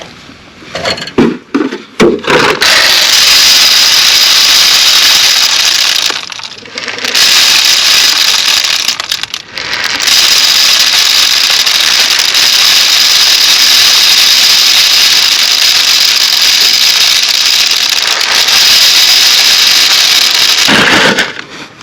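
Dry chicken scratch feed being poured in a steady stream through a funnel into a 3-inch PVC pipe feeder. It is a loud, continuous rattling hiss in three long pours, with two short breaks, and a few knocks before the first pour.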